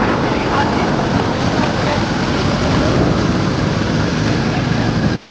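Wind rushing over the microphone on a moving motorcycle, with the engine running underneath. The sound cuts off abruptly near the end.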